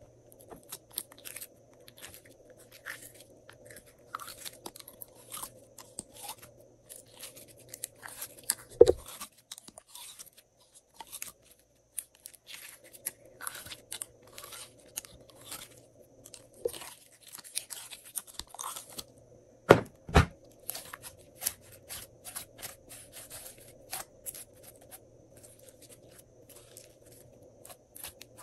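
Glossy slime being kneaded and pressed by hand with mixed-in add-ins, giving a run of sticky crackles and little popping clicks. There is one louder slap about nine seconds in and two more in quick succession around twenty seconds.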